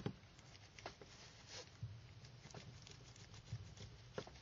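Faint, irregular clicks, about one a second, of a small precision screwdriver turning the screws of a Sony Ericsson WT19i phone's plastic rear frame, the tip ticking against the screw heads and plastic.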